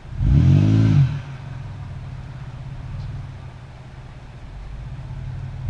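An engine revs up once and drops back about a second long, then keeps running at a steady low idle.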